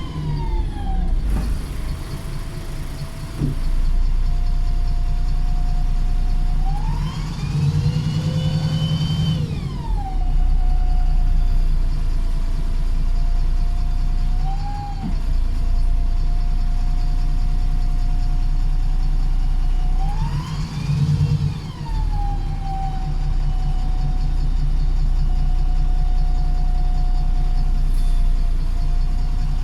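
Wright Pulsar single-deck bus heard from on board, its engine running under load with a loud, steady high whine from its whiny gearbox and differential. Twice the whine climbs sharply in pitch for a couple of seconds and drops back.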